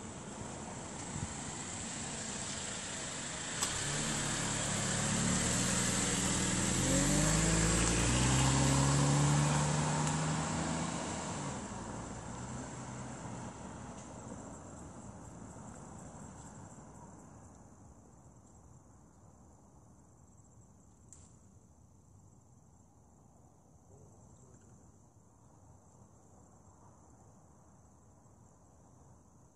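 A motor vehicle's engine approaching and passing on the road, its note climbing as it grows louder, loudest about eight or nine seconds in, then fading away. A steady high-pitched chirring of insects is left after it.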